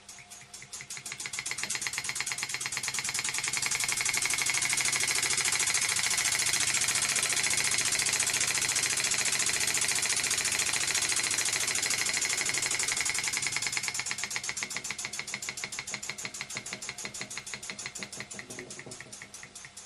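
Ind-X electrically heated toy steam engine running, its single oscillating cylinder exhausting steam in rapid chuffs. As the regulator valve is opened it speeds up and grows louder over the first few seconds, holds fast for several seconds, then slows and quietens as the regulator is closed down.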